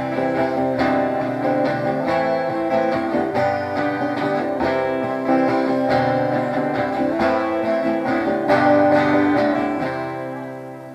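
Two acoustic guitars played together, strummed chords with picked notes over them; near the end the last chord rings out and dies away.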